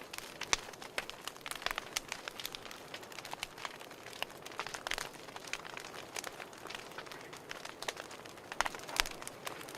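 Fireplace wood fire crackling: irregular sharp pops and snaps over a soft steady hiss, with stronger pops about half a second in and near the end.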